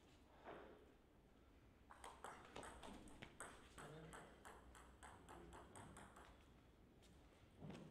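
Table tennis rally: the ball clicking off the bats and the table in quick alternation. It starts about two seconds in and runs for about four seconds before stopping when the point ends.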